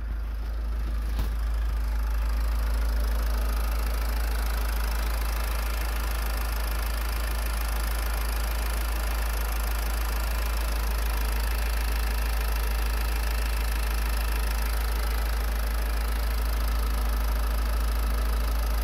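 Renault 2.0 dCi M9R four-cylinder common-rail turbodiesel idling steadily, with the usual diesel clatter.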